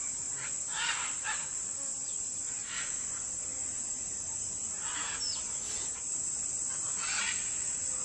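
A steady high-pitched drone of insects, with scattered short calls from macaws and parrots a few times.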